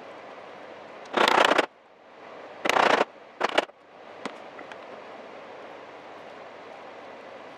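Round-headed mallet striking a wooden-handled chisel to chop a mortise: three short bursts of sharp knocking and crunching in the first four seconds, then a couple of light clicks, over a steady background hiss.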